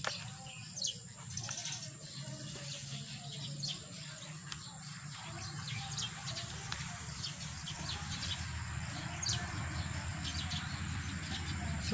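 Gloved hands stirring and scooping a dry mix of soil and carbonized rice hull in a plastic basin, a continuous rustling and crunching that gets denser toward the end. Birds chirp now and then in the background.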